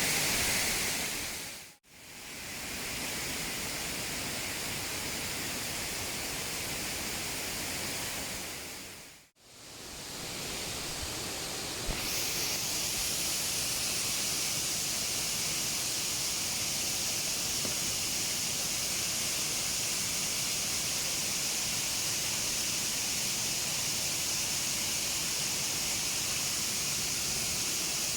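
Steady rush of falling water, a waterfall and rain at night, as an even hiss. It cuts out briefly twice, about two and nine seconds in, and about twelve seconds in it turns brighter and hissier.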